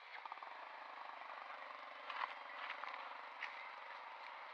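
A steady low engine hum that starts just after the beginning, with a few short clicks over the top.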